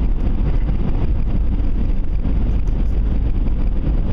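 Steady low rumble of a vehicle driving, with wind buffeting the microphone.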